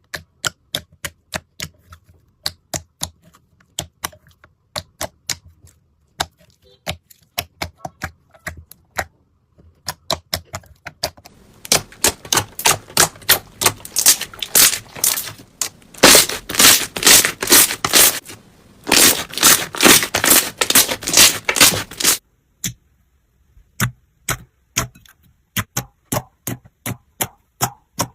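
Crunchy slime being pressed and worked by hand, making a string of crisp clicks and crackles. The clicks come sparsely at first, then in dense, loud runs through the middle, then sparsely again near the end.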